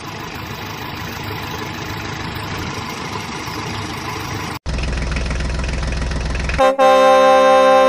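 Vehicle engine sound effects in three edited pieces: a steady engine noise that gradually grows louder, a sudden cut at about four and a half seconds to a deeper idling engine, and a steady pitched tone over a pulsing low rumble near the end.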